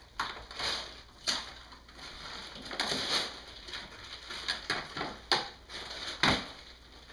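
Gift wrap and tissue paper crinkling and rustling as presents are unwrapped, in irregular bursts with a few sharper, louder crackles.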